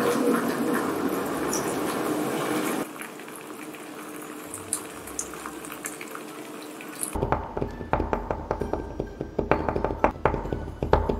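Water poured from a plastic bottle splashing onto a glass sheet, a foley imitation of rain, loud for about the first three seconds. It then drops to a quieter hiss with scattered small pops, and about seven seconds in gives way to a low rumble with rapid, irregular clicking and knocking.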